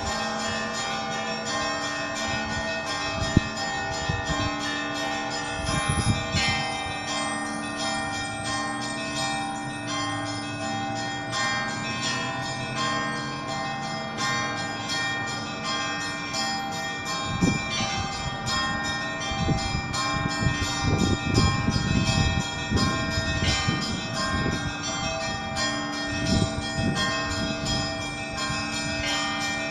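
Russian Orthodox church bells ringing: many quick strikes on smaller bells over the steady, overlapping tones of larger bells.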